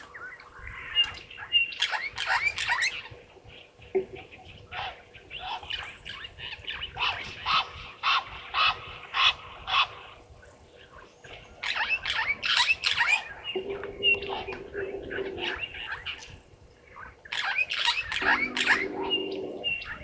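African wild dogs twittering: bouts of short, high-pitched chirps and squeaks with brief pauses between them, the excited social calls of pack members close together. Twice in the second half a lower, held tone sounds beneath the chirps.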